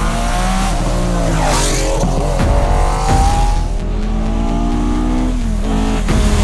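Historic rally car engines at full throttle, revving hard, with the pitch climbing through each gear and dropping at every upshift. About four seconds in, another car's engine takes over.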